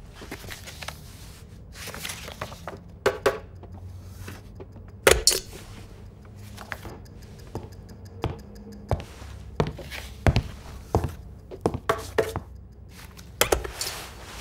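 Sharp clicks and knocks of office objects being handled, about a dozen at uneven intervals, over a low steady room hum.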